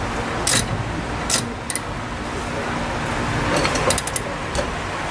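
Hand tools clicking and clinking on the coilover's mounting hardware: a few scattered short metallic strokes, then a quick cluster of them about four seconds in, over a steady low background hum.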